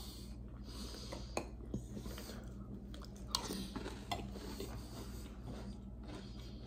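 Quiet chewing of chocolate cereal puffs in milk, with a metal spoon clinking a few times against a clear bowl, loudest a little over three seconds in.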